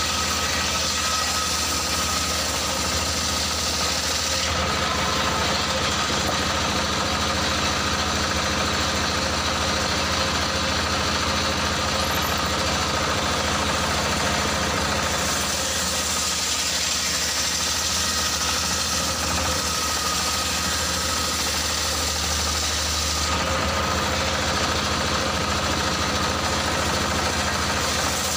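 Circular saw bench driven by a stationary diesel engine, the engine running steadily while the blade rips a log lengthwise. The hiss of the blade in the wood changes in strength about 5, 15 and 23 seconds in as the log is pushed through.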